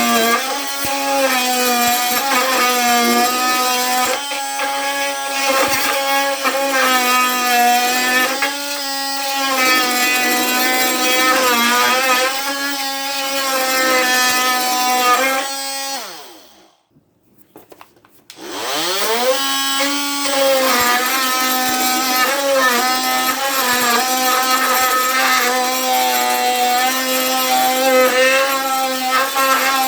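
Ryobi P343 brushed oscillating multi-tool cutting into wood with a wood blade: a loud buzz whose pitch sags and wavers as the blade bogs in the cut. About halfway through it winds down and stops, then spins back up and keeps cutting. The cut is slow, a sign of a weak tool.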